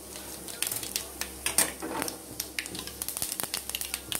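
Mustard, fenugreek and cumin seeds spluttering in hot oil in a small aluminium pot: many irregular sharp pops and crackles over a sizzle, the tempering (thalippu) being made for sambar.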